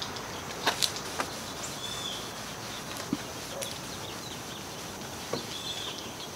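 Quiet outdoor background of birds and insects, with a few light clicks and knocks about a second in and one more about three seconds in, from handling a metal can of naphtha and a rag while wiping down a wood table top.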